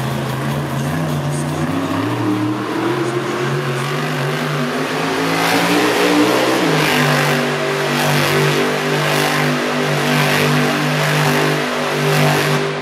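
Monster truck's supercharged V8 engine revving hard, its pitch climbing over the first several seconds, then held high and steady before dropping off at the very end.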